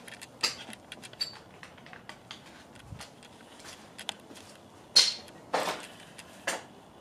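Scattered light clicks and taps, irregular, with a few louder knocks about five to six and a half seconds in, over faint room tone.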